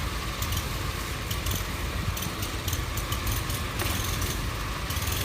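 Blizzard wind rumbling steadily on a phone microphone, with scattered short crackles over it.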